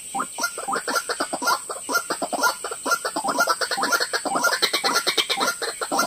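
White-breasted waterhen (ruak-ruak) calling: a fast, unbroken run of croaking notes, about eight a second.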